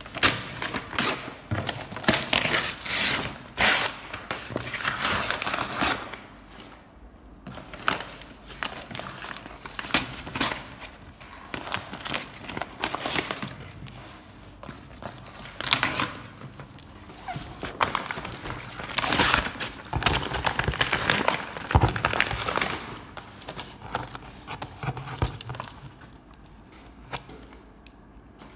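Packaging being handled: a plastic carrier bag crinkling and a tape-sealed cardboard box being shifted and rubbed by hand, in irregular rustles, scrapes and small knocks.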